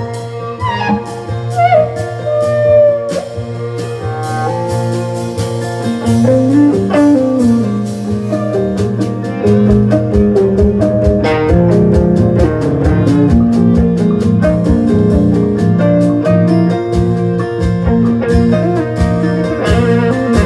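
Live band playing an instrumental break: acoustic guitar with an electric guitar lead, notes sliding and bending near the start. About halfway through it settles into a steady, even strummed rhythm over a held low note and grows louder.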